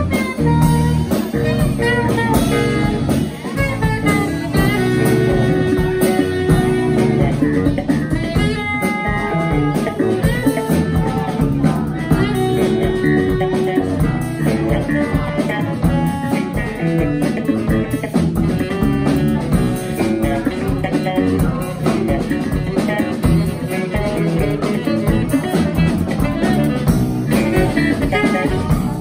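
Live jazz trio playing: saxophone carrying the melody with long held notes over a six-string electric bass guitar line and a drum kit keeping time.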